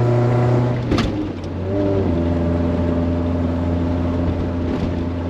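Fiat X1/9's inline-four engine pulling along, heard from inside the cabin. About a second in there is a click and a brief dip, then the engine settles at a lower steady pitch, as with an upshift.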